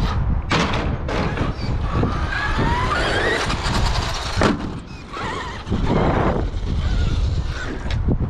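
Traxxas X-Maxx electric RC monster truck driving hard on concrete, its brushless motor and drivetrain whining up in pitch as it accelerates, with a few sharp knocks from the truck hitting the ground.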